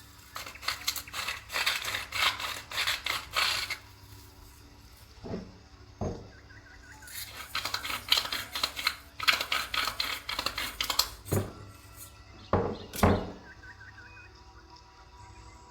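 Kitchen utensils clattering in two spells of rapid tapping, several seconds each, with a few single louder thunks between them.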